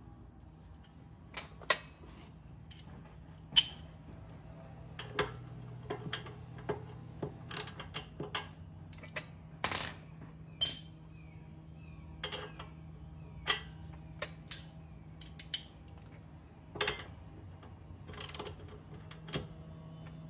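Wrench tightening the castle nut on a car's upper control arm ball joint: sharp metallic clicks and clinks at irregular intervals, about one every second or two, over a steady low hum.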